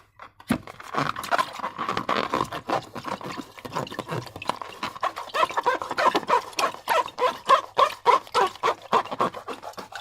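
Slime being squeezed and worked by hand, a rapid, irregular run of small clicks and pops.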